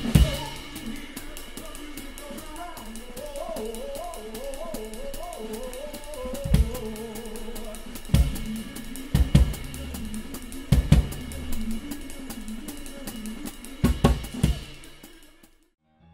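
Drum kit played live with a band: steady cymbal strokes and snare and bass drum, with a handful of heavy accented hits, under a melody from the other instruments. The music fades out just before the end.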